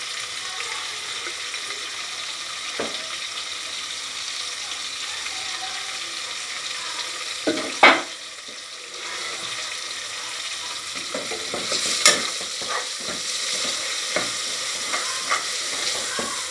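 Chicken mince frying in an aluminium saucepan with a steady sizzle. A steel spoon knocks against the pan a few times, loudest about eight seconds in. From about eleven seconds on it scrapes and clicks more often as the mince is stirred.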